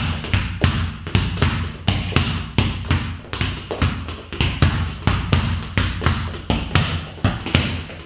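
A football struck with the inside of the foot and rebounding off a wall in one-touch passes, a quick, steady run of knocks about three a second.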